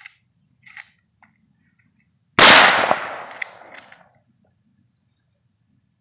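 A single rifle shot: one sharp crack about two seconds in, trailing off in an echo over about a second and a half.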